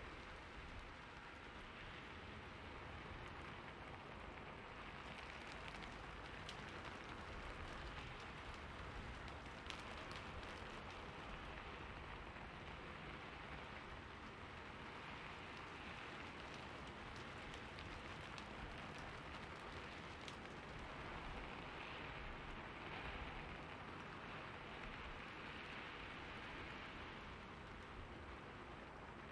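Steady rainfall, an even hiss with occasional sharper drop ticks scattered through it.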